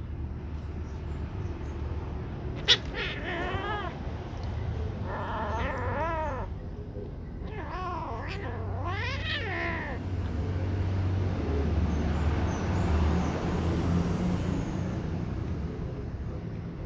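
Kittens meowing: four short, wavering cries within the first ten seconds, as the kittens squabble over food and one swipes at the other. A sharp click comes just before the first cry, and in the second half a rushing noise swells and fades.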